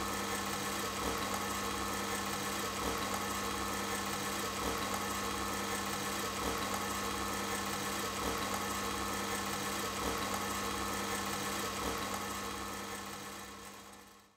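Steady electrical hum from the projection lantern's arc lamp, with a faint regular pulse beneath it. It fades out over the last two seconds.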